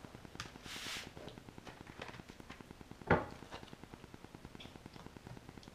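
Tableware sounds during a meal: light clicks of a fork against a plate or bowl, a short scrape just under a second in, and one sharper knock about three seconds in, as of a dish or utensil set down on the counter.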